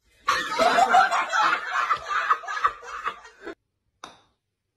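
A person laughing in quick, choppy bursts for about three seconds, then stopping abruptly.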